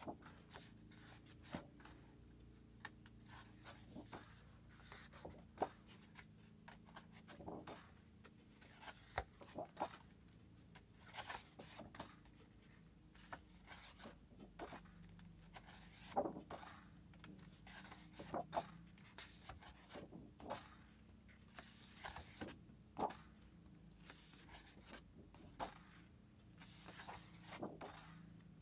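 Sheets of scrapbooking paper in a paper pad being turned over and smoothed down by hand: irregular rustling with a sharper flick or slap of paper every second or two.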